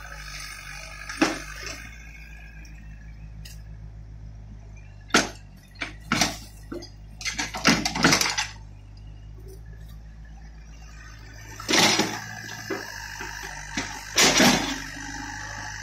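Mini excavator working: a diesel engine hums steadily under a string of sharp knocks, clanks and wet thuds from the bucket scooping manure and dropping it into a steel trailer. The loudest cluster comes around the middle, with two more knocks near the end.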